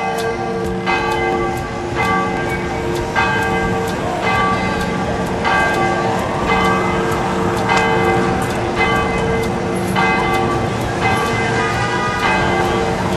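Church bells ringing, a new stroke a little more than once a second, each ringing on under the next.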